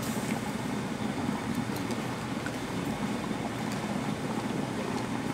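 Steady low rumble of kitchen or stall equipment, with a few faint light clicks as wooden skewers of fish cake are handled over the broth tray.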